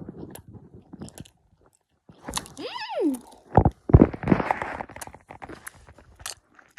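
Sweets being crunched and chewed close to the microphone, in irregular clicks and bursts. About halfway through, a brief pitched sound slides down in pitch.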